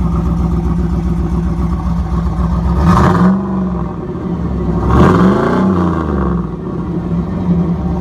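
1994 Chevrolet Camaro Z28's 5.7-litre LT1 V8, heard at its dual exhaust tips, idling and then revved twice: a short blip about three seconds in and a bigger, louder rev two seconds later, each falling back to idle.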